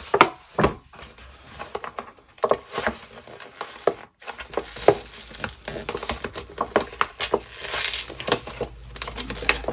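Kraft paper envelope being handled and its flap worked open, with paper rustling and crinkling and small scrapes and taps against the desk. Two sharper knocks come just after the start as the envelope is set down.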